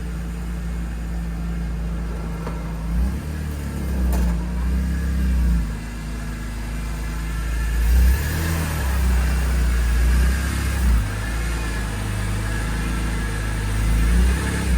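BMW E46 engine running as the car is driven at low speed, its note rising and falling with the throttle a few times.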